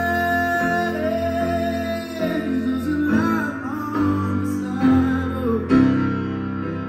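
Live grand piano playing sustained chords under a singer's long, wordless held notes that waver slightly in pitch.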